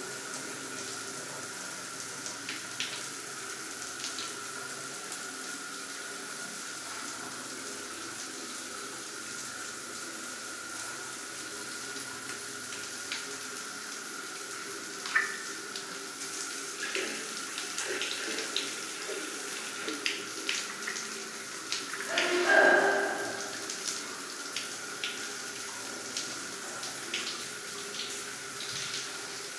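Water running steadily from a shower head onto a tiled floor. Scattered clicks and knocks come through the middle, and there is a brief louder burst about three quarters of the way through.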